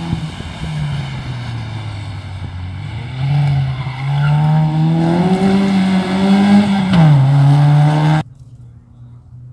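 First-generation Volkswagen Golf rally car driven hard on a stage: its engine note dips, then climbs steadily under full acceleration and drops with an upshift about seven seconds in. The sound cuts off abruptly near the end, leaving a faint distant engine.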